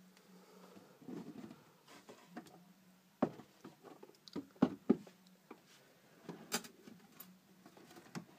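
Scattered sharp clicks and light knocks of handling, a few louder ones about halfway through, over a faint steady hum.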